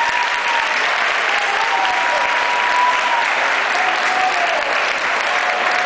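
Large audience applauding steadily, with a few short held tones sounding over the clapping.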